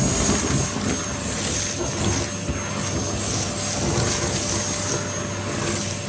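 Henry XL Plus vacuum cleaner fitted with a Dyson motor, running steadily: a constant motor whine over a rush of air.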